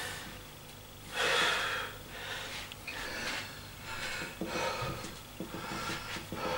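A man breathing hard after a set of barbell lifts: a series of heavy, noisy breaths, the loudest about a second in. A few light clicks and knocks come in the second half.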